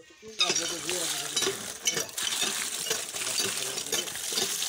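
Water poured onto a woven bamboo basket of freshly caught fish, splashing over them with a dense crackling patter that starts suddenly about half a second in.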